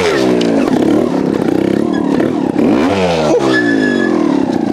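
Trials motorcycle engine blipped on the throttle while the bike is ridden up a muddy bank: the revs drop away at the start, rise sharply again about three seconds in, and fall back.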